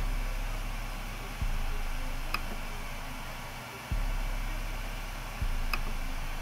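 Steady whir of an Ender 3D printer's cooling fans while it sits idle with the bed heating, with a few soft low thumps and two faint clicks.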